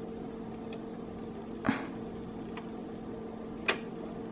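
Small handling clicks at a sewing machine while thread is worked through the needle's eye: two short, sharp clicks about two seconds apart, over a steady low hum.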